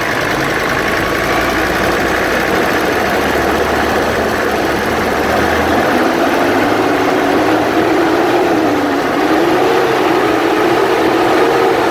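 Toyota Land Cruiser diesel engine running on its freshly rebuilt and refitted Denso injection pump, on a test run. It runs steadily at first, then from about two-thirds in it is revved lightly up and down several times.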